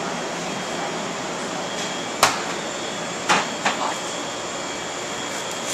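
Steady rushing air noise from commercial kitchen ventilation and refrigeration equipment, with a faint high whine. Sharp knocks come about two seconds in and twice more a second later.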